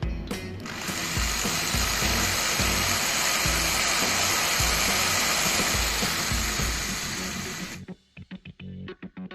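A loud, steady mechanical noise from a workshop tool runs for about seven seconds and cuts off suddenly, over background music with a steady beat. A few light clicks follow near the end.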